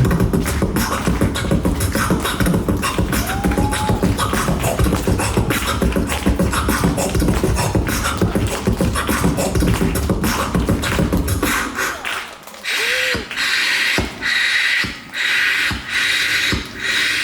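Beatboxing: a dense, fast rhythm of mouth-made kicks, snares and clicks over a deep bass. About eleven seconds in the bass drops out, leaving a run of short, evenly spaced hissing bursts.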